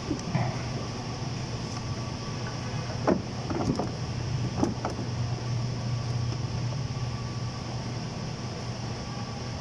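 Light clicks and knocks of hands handling wiring and parts in a car's engine bay, a few at a time in the first half, over a steady low hum.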